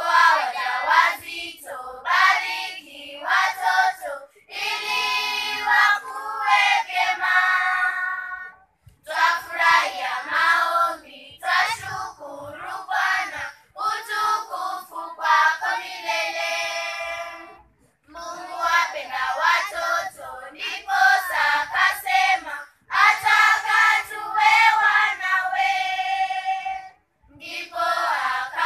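A children's choir singing together in phrases of several seconds, with short pauses between them.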